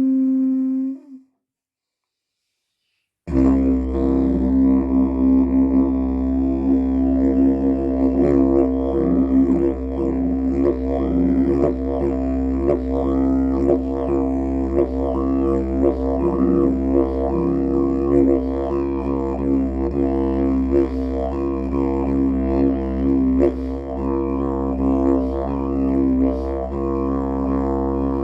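Wild-cherry didgeridoo played in a continuous drone, its overtones shifting and sweeping as the player varies the sound. It starts about three seconds in, after a short held tone that ends about a second in and a brief silence.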